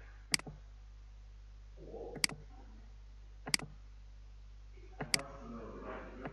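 Computer mouse button clicked four times, about one and a half seconds apart, each a short sharp click.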